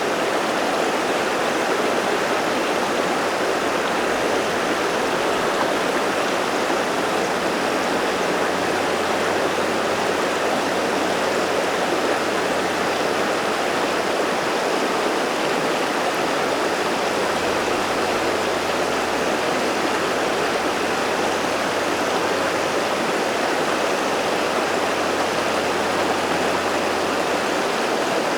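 River water flowing steadily over rocks: an even, unbroken rushing.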